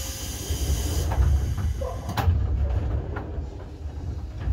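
Electric commuter train standing at a platform: a hiss of compressed air from its pneumatic equipment fades out about a second in, over a low rumble, with a sharp knock about two seconds in.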